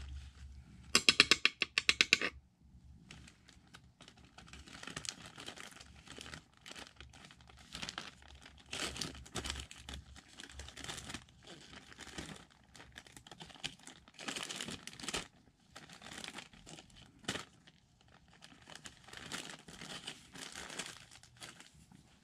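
A quick run of about a dozen sharp clicks about a second in, then irregular bursts of crinkling and rustling in a small room.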